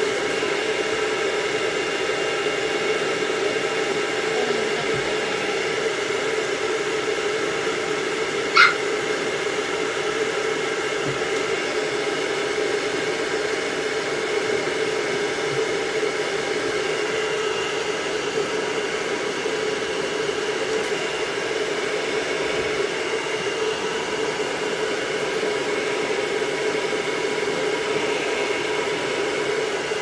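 Stand-mounted pet grooming dryer blowing steadily with a humming motor. About eight and a half seconds in, the miniature dachshund being dried gives one short, high yip.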